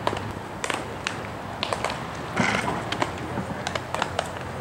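Ambient sound of baseball fielding practice: scattered sharp pops and knocks at an irregular spacing, typical of balls smacking into leather gloves and off bats, with a louder brief noise about halfway.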